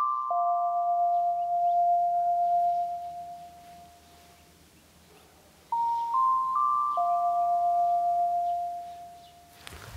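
Intro music: a bell-like chime figure of three short rising notes followed by a lower note that rings on and fades. It sounds near the start and again about six seconds in.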